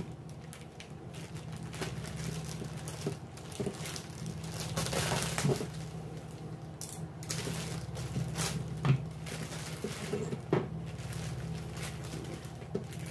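Clear plastic bag crinkling and rustling as it is handled and pulled open around a plastic action figure, with scattered small clicks and knocks on a tabletop; the loudest knock comes about nine seconds in.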